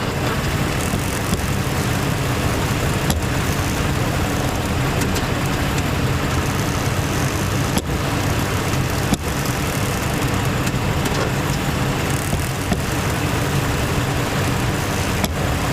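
Toyota RAV4 on the move, steady engine and road noise with a few sharp clunks at irregular intervals. The clunks are an unexplained fault that persists even though almost everything has been replaced.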